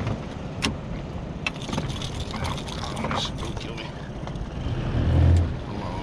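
Wind rumbling on the microphone aboard a small aluminium boat, with a few light knocks and clicks of gear being handled and a louder low thump about five seconds in.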